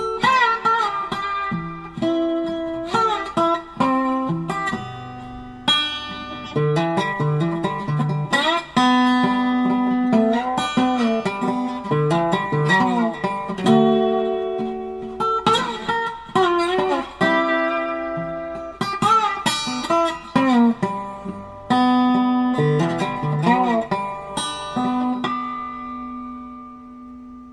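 Background music: a solo plucked-string melody with bent, wavering notes, fading out on a single held note near the end.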